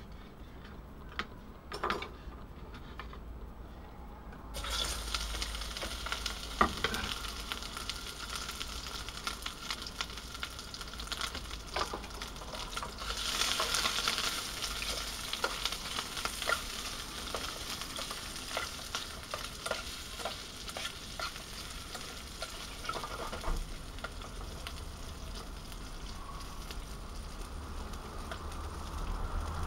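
Chopped Schinkenmettwurst (ham sausage) sizzling as it goes into a hot pan, starting suddenly about four and a half seconds in and frying steadily from then on. Small clicks and scrapes come through it as the pieces are placed and pushed around, and the sizzle is loudest for a couple of seconds around the middle.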